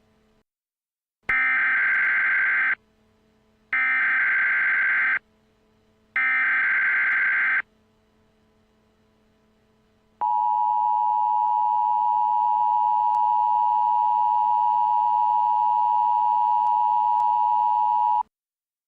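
Emergency Alert System signal: three short bursts of SAME header data, each about a second and a half with a second's gap, then the steady two-tone attention signal held for about eight seconds. It marks the start of a new alert, here a flood warning.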